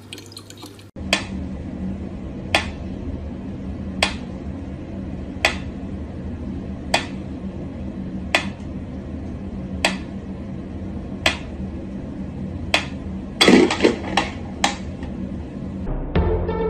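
Mechanical pyramid metronome ticking slowly and evenly, about one tick every one and a half seconds, over a low steady hum. Near the end a quick clatter of several louder knocks breaks the beat.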